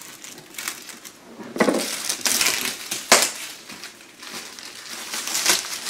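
Cardboard board-game box being opened and its contents handled: rustling and scraping, with two sharp knocks about a second and a half apart.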